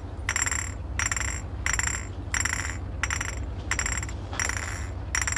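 Glass bottles clinked together in a steady rhythm, about three clinks every two seconds, each ringing briefly, over a low steady hum.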